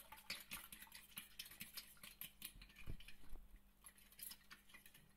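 Metal spoon stirring a thin egg-and-milk batter in a glass baking dish: faint, quick clicks and scrapes of the spoon against the glass.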